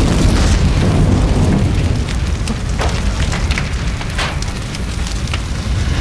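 A fire blazing: a steady, loud rushing noise with a deep rumble underneath and sharp crackles scattered through it.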